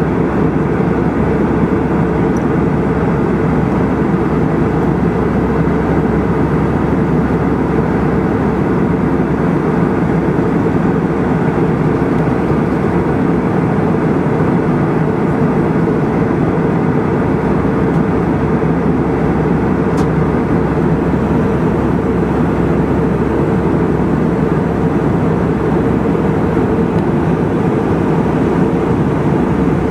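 Steady engine and airflow noise of a jet airliner in cruise, heard inside the passenger cabin.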